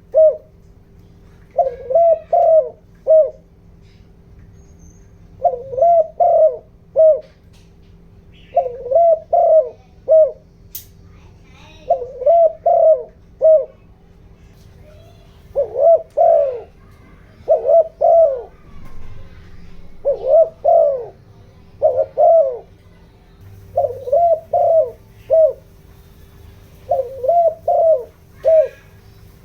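Spotted dove cooing in short phrases of three or four quick notes, repeated every two to three seconds. This is the lively 'giọng đồng' coo used as a decoy call to rouse wild doves. A faint steady hum runs underneath.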